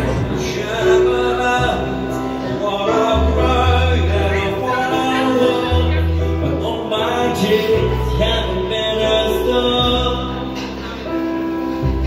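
Live amplified music with a man singing into a microphone over long, deep bass notes.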